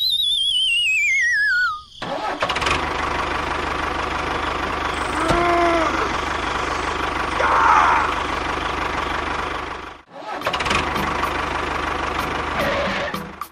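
A wavering whistle that slides steadily downward for about two seconds, then a tractor engine running steadily, with a brief drop-out about ten seconds in.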